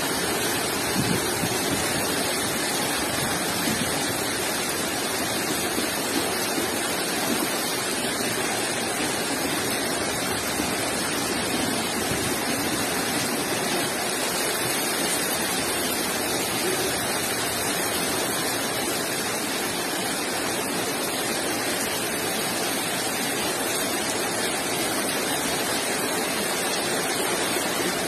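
Flash-flood water rushing through a street: a loud, steady torrent of water.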